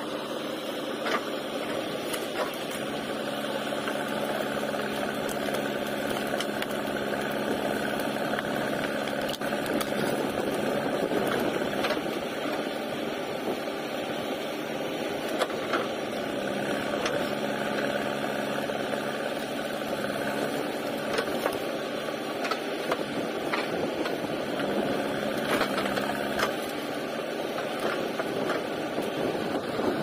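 JCB 3DX backhoe loader's diesel engine running steadily while the backhoe arm digs and drags out shrub roots. Occasional short, sharp cracks and knocks come through from roots and branches breaking.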